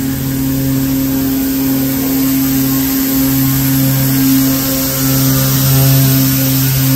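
ER20 diesel locomotive's engine running with a steady low hum.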